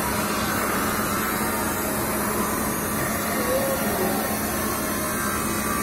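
Steady machinery noise: a continuous even drone with a low hum underneath, unbroken throughout.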